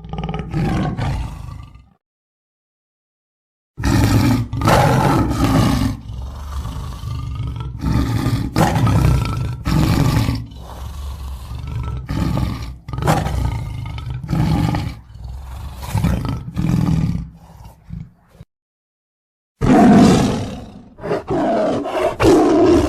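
Lion roaring loudly in three bouts separated by silence: a short roar at the start, a long series of repeated roars, and another roar near the end.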